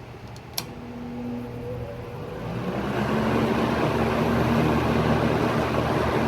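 Eskimo box fan (McGraw-Edison model 121007) switched on at high speed with a click, its motor giving a faint startup hum as it spins up. The air noise builds over about two seconds and then blows steadily.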